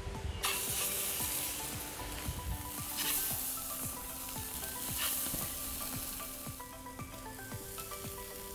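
Marinated chicken pieces sizzling on the hot grate over charcoal, the hiss starting about half a second in and swelling briefly around three and five seconds in.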